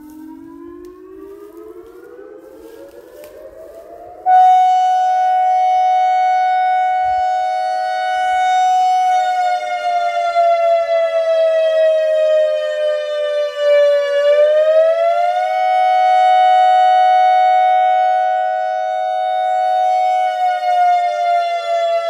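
ACA Alertronic AR-1600 electronic outdoor warning siren sounding a test signal, its horns rotating. The tone rises in pitch over the first four seconds, gets suddenly much louder, then holds steady with slow sags and returns in pitch and loudness.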